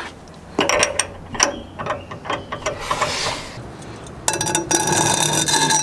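Wrench on a truck's pitman arm nut, trying to break it loose. Scattered metal clicks and clinks, then a fast run of clicks starting about four seconds in.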